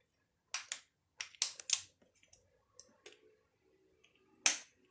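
Scattered sharp clicks and knocks of metal hardware and hand tools while bolts are fitted on a car's driveline. A quick run of clicks comes in the first two seconds and one louder knock near the end.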